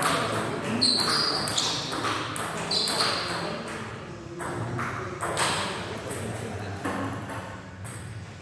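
Table tennis rally in a doubles game: the ball clicks off paddles and the table in a quick, irregular run of hits. Two short high squeaks come about one and three seconds in.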